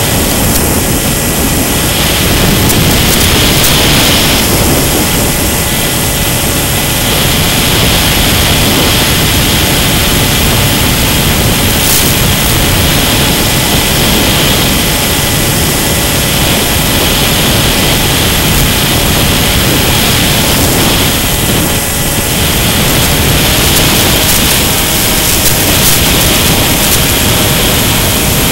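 Mini Skywalker electric FPV plane in flight, heard from on board: its brushless motor and pusher propeller run with a steady drone and faint whine under loud wind rush on the microphone. The sound swells slightly a few times as the throttle or airspeed changes.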